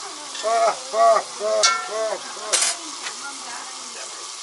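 Sturgeon frying in a pan, with a steady sizzle. Over it come about five short calls in quick succession, each rising and falling in pitch, with a sharp click in the middle.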